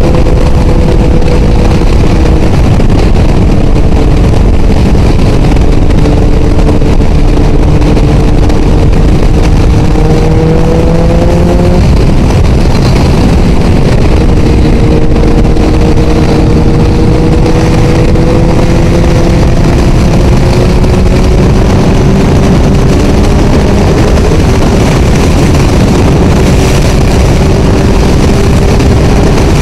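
Motorcycle engine running at road speed under heavy wind noise on a helmet microphone. The engine note glides slowly up and down, and it drops and picks up again about two seconds in and about twelve seconds in.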